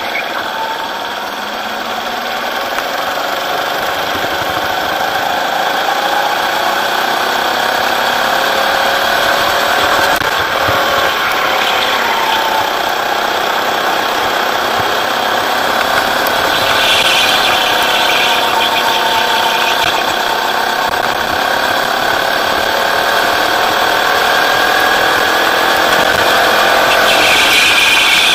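Rental go-kart engine running hard on track, its pitch climbing slowly and dipping as the throttle comes on and off through the corners. Twice, about two-thirds through and near the end, a high squeal rises over the engine, typical of the tyres scrubbing in a corner.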